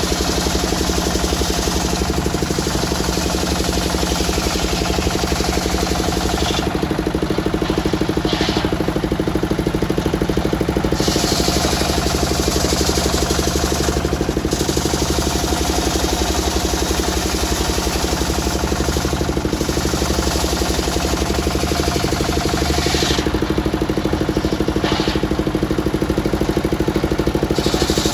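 Engine-driven circular sawmill running steadily with a fast even beat, its blade cutting teak with a hiss that drops out twice for a few seconds between cuts.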